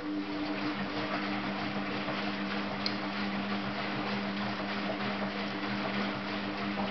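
Bendix 7133 Autowasher Deluxe front-loading washing machine running a rinse: the drum motor starts up with a steady hum as the drum tumbles the laundry through the rinse water.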